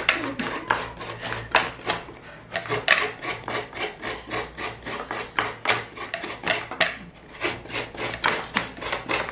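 Coconut halves being scraped on coconut graters by two people at once: quick, uneven rasping strokes, several a second, overlapping.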